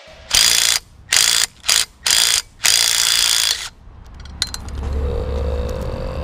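Cordless impact wrench hammering in five short bursts, the last about a second long, driving nuts onto the studs that hold a turbo to its exhaust manifold. A low rumble builds near the end.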